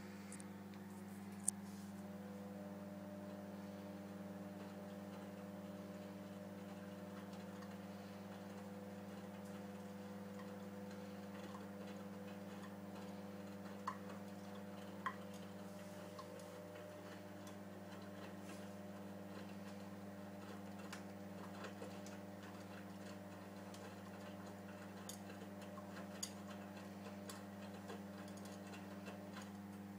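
Steady low electrical hum of a running appliance, with scattered light ticks and a few sharper clicks or taps.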